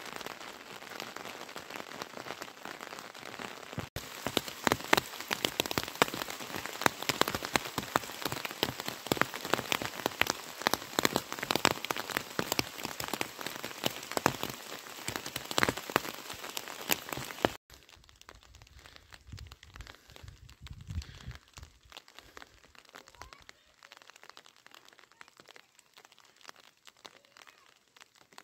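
Rain falling, with many individual drops striking close by as sharp ticks over a steady hiss. About four seconds in it becomes louder, and at around seventeen seconds it drops suddenly to a much quieter, sparser fall of drops.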